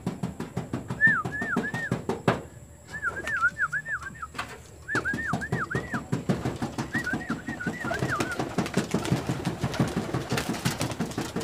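Racing pigeons in their loft, cooing and flapping as they come out of the opened loft, with many sharp clicks and wing claps. Short runs of three or four high, rising-and-falling chirps come four times, and the cooing and flapping grow denser about halfway through.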